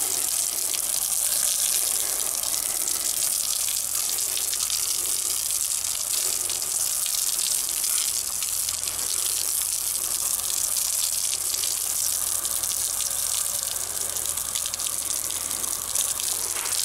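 A jet of water from a hose spraying steadily against a flagstone-and-mortar wall, a continuous hissing splash as the mortar is washed off the stone.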